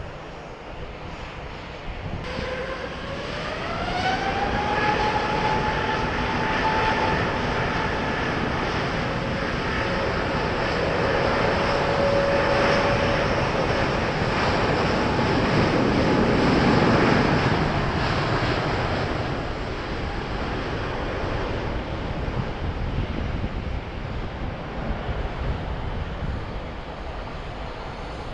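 Airbus A350's Rolls-Royce Trent XWB jet engines. A whine rises in pitch about two seconds in as they spool up, then holds steady under a loud rush of jet noise that swells past its peak and eases off near the end.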